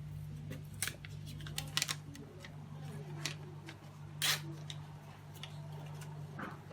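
Scattered light clicks and taps from hands handling the hematology analyzer's plastic parts, the loudest about four seconds in, over a steady low hum.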